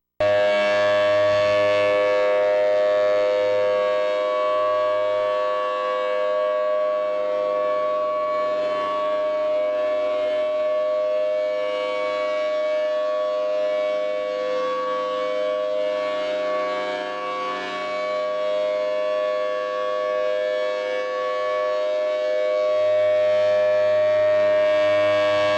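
Outdoor civil defense warning siren sounding a steady chord of several tones, held at one pitch.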